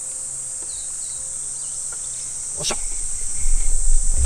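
Insects shrilling steadily in a high, even drone, with a few faint short chirps about half a second in. From about three seconds a loud, low rumble takes over.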